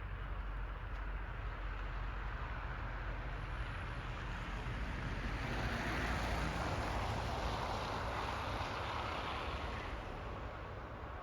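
A broad rushing noise that swells to a peak about six seconds in and fades again by about ten seconds: a vehicle passing by.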